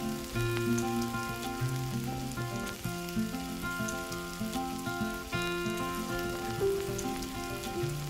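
Background music playing a steady, simple melody over a faint crackling sizzle of miniature food frying or grilling.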